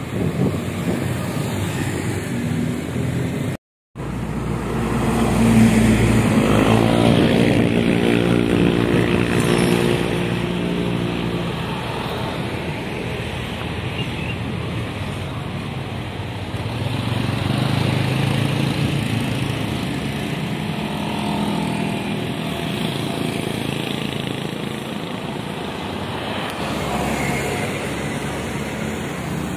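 Road traffic on a bend: motorcycles and cars passing one after another. A louder engine with a clear pitch goes by about five to eleven seconds in, and another vehicle passes later on. The sound cuts out completely for a moment just before four seconds in.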